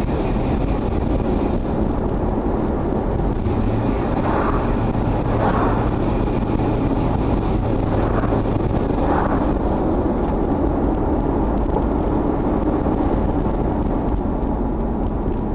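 Chevrolet Tahoe driving, with steady engine and road noise. A few faint, short higher sounds come in the middle.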